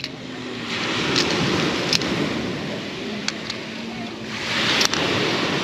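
Surf washing on the beach with wind on the microphone, swelling twice. A few sharp plastic clicks of Connect Four counters knocking into the plastic grid sound over it, the last near the end.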